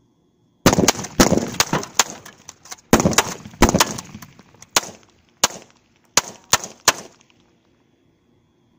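A rapid string of gunshots fired at a flat-screen TV, about eighteen in six seconds, coming fast at first and spacing out toward the end.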